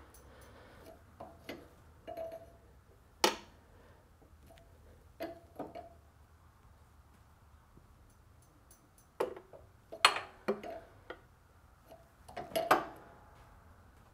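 Steel 24 mm wrench clinking against a drain plug and the tractor frame as it is fitted, turned and refitted to tighten the plug: scattered sharp metallic clicks, the loudest about three seconds in and again about ten seconds in.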